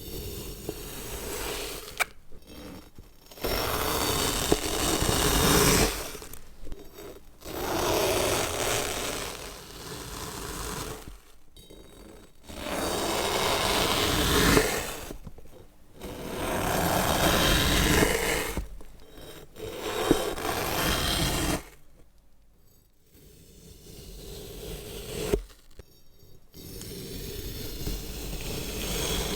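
A run of cutting sounds: about ten separate scraping strokes of a blade through material, each lasting one to three seconds, with short pauses between them.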